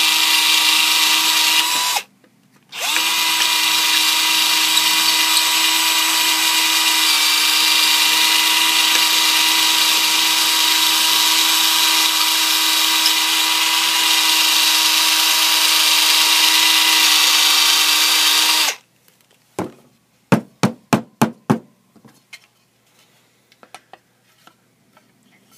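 Cordless drill running steadily at speed as its bit widens the slot of a wooden saya (knife sheath). It stops briefly about two seconds in, then runs again for about sixteen seconds before cutting off. A quick run of about seven sharp taps follows.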